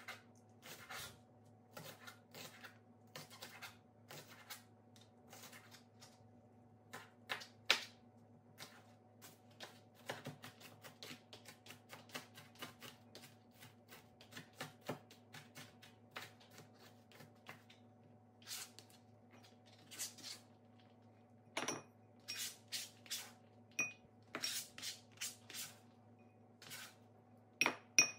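Kitchen knife chopping green onions on a cutting board: quick irregular taps of the blade on the board, a few a second, over a faint steady hum.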